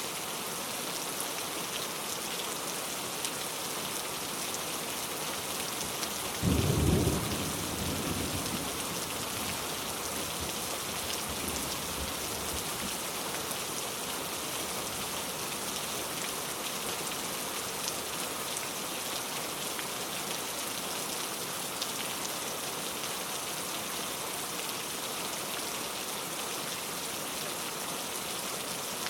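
Steady heavy rain falling and pattering, with a sudden low rumble about six seconds in that fades over two or three seconds.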